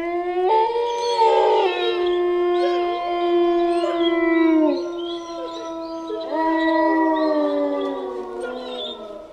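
Several canines howling together, long overlapping notes at different pitches that slide slowly up and down, like a pack chorus. It starts abruptly and fades out near the end.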